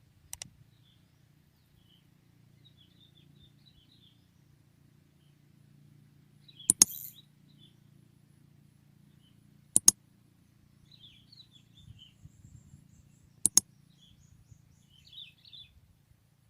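Small birds chirping on and off over a low steady rumble, with a few sharp clicks, the loudest sounds, about seven, ten and thirteen and a half seconds in.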